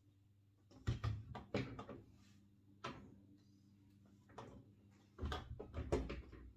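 Panelled interior door being opened, with clattering knocks of the handle and door about a second in. It is pushed shut again about five seconds in, with the loudest knocks.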